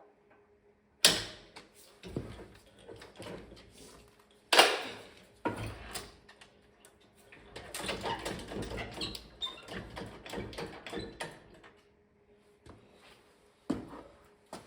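Metal clanks and knocks from hands-on work on a tractor being split apart: two loud sharp knocks a few seconds apart, then several seconds of rattling and clattering, and one more knock near the end.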